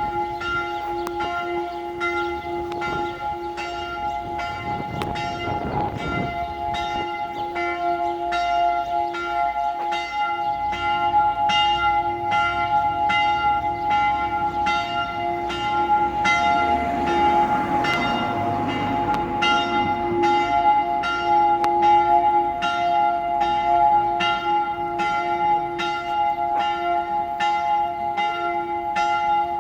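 Church bells of the Predigerkirche in Basel ringing in a full peal, the swinging clappers striking in a steady rhythm a little faster than once a second over a long, humming ring of bell tones.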